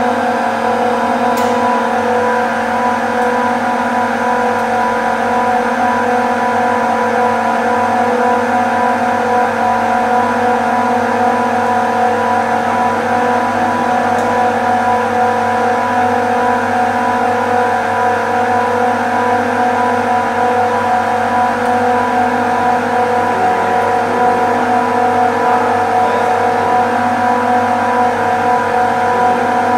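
Rack of industrial refrigeration screw compressors running: a loud, steady drone with several fixed tones.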